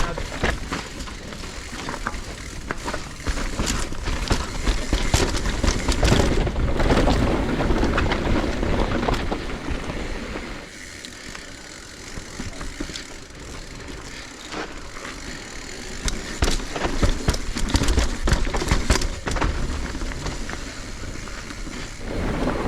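Downhill mountain bike riding a rough trail: steady wind rumble on the microphone over tyre noise on dirt, with many sharp clicks and rattles from the bike. It quietens for a few seconds in the middle, then picks up again.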